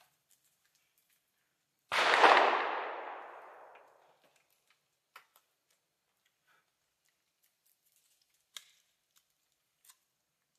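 A single gunshot about two seconds in, with a long fading echo. Later come a few light clicks as the rifle is handled.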